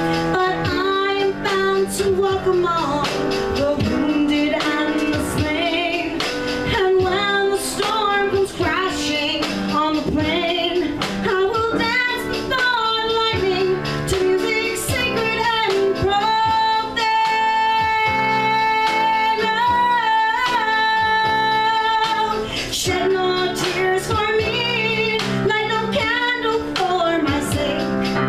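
A woman singing a musical-theatre ballad with piano accompaniment, holding one long note for about six seconds a little past the middle.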